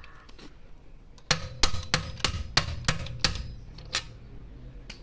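A quick run of about eight sharp metallic clinks, roughly three a second, starting about a second in, each with a short ring: a steel socket being handled and fitted at a car's wheel bolt.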